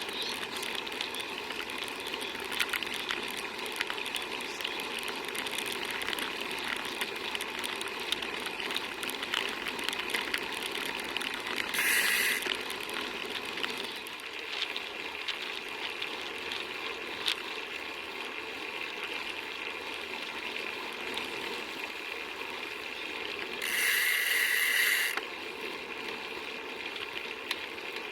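Bicycle riding noise: a steady rush with fine, fast ticking like a freewheel ratchet. Two brief louder hissing bursts come about 12 seconds in and again about 24 seconds in, the second lasting about a second and a half.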